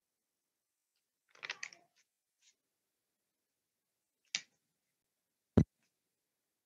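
Dead quiet broken by a short cluster of clicks about a second and a half in, a single click after about four seconds, and a sharper, louder knock near the end. The sound cuts to complete silence between them.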